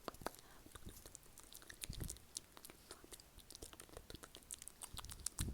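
Close-miked ASMR mouth sounds: quick, irregular wet clicks and smacks of lips and tongue, with a couple of soft low thumps among them.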